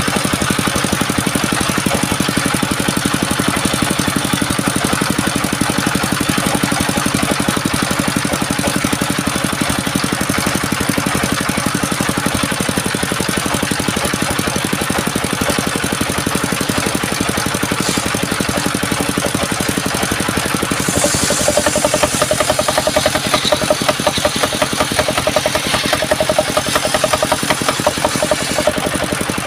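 Motor of a homemade sawmill machine running steadily; about two-thirds of the way through a new steady tone joins and the sound grows louder and rougher for several seconds, as when the blade takes a cut.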